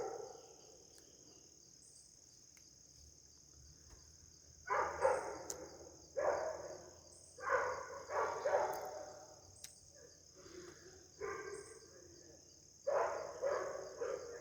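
Steady high chirring of crickets, with faint regular pulses about once a second. From about five seconds in, a series of short voice sounds comes and goes, each under a second.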